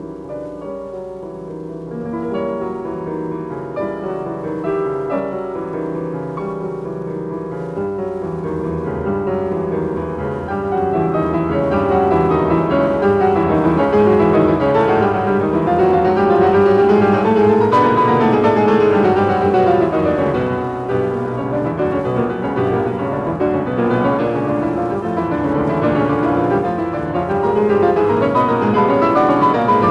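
Background piano music that grows louder about a third of the way in, with a run of notes rising and then falling near the middle.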